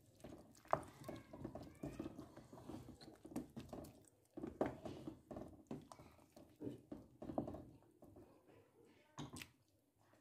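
Wooden spoon stirring thick, slimy okra ogbono soup in a metal pot: irregular wet squelches and sloshes, with a couple of sharp knocks of the spoon against the pot.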